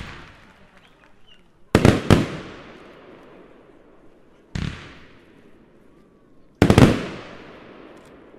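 Aerial fireworks bursting in the night sky: a bang right at the start, a double bang about two seconds in, a single bang near the middle, and a quick cluster of bangs near the end, each trailing off in a long echoing rumble.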